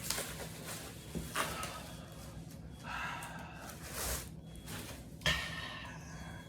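Quiet handling noises while unpacking: several short rustles and swishes, the sharpest about five seconds in.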